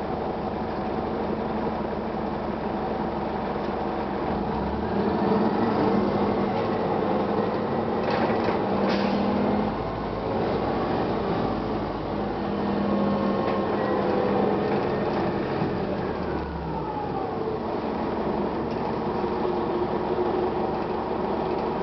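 A 1999 Gillig Phantom transit bus's diesel engine and automatic transmission running under way. A whine rises in pitch a few seconds in as the bus picks up speed and falls away a few seconds before the end as it slows. A couple of brief rattles come about eight to nine seconds in.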